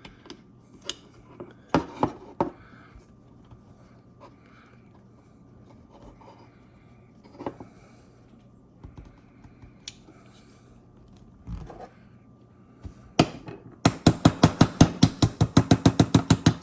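Small metal parts clicking as a hammer pin is worked into line in an AR-15 lower receiver. Near the end comes a fast run of sharp taps, about seven or eight a second, as the pin is tapped home.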